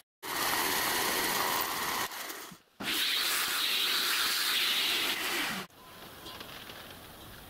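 Compressed air blown over a freshly milled cast iron cylinder block to clear the chips: a steady rushing hiss in two spells of about two and three seconds, each cutting off sharply. After that only faint small clicks are heard.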